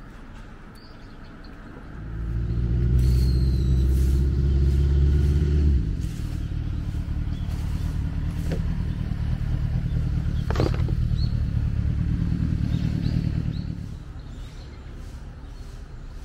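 Steady low engine rumble of a motor vehicle running nearby. It swells in about two seconds in, drops a little near six seconds, and fades away near fourteen seconds.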